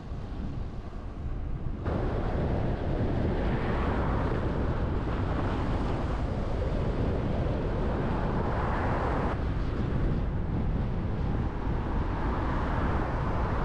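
Road and wind noise: a steady rush of wind on the microphone, with vehicles swelling past and fading. It gets louder about two seconds in.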